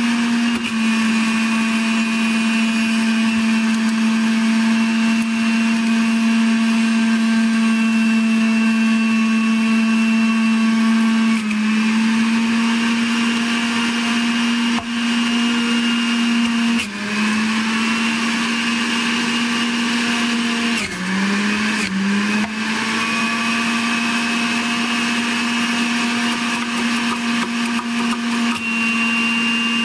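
Electric centrifugal juicer's motor running steadily with a loud whine. Its pitch sags briefly about three times, in the middle and later part, as produce is pushed down the feed chute into the spinning cutter basket.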